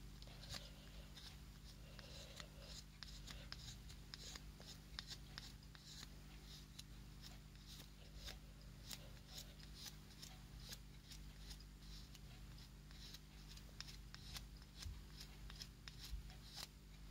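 Faint, short scraping strokes of a 6Kh3 AKM bayonet's steel blade shaving wood from a pencil tip, many strokes coming irregularly, a few each second, as the pencil is sharpened to a point.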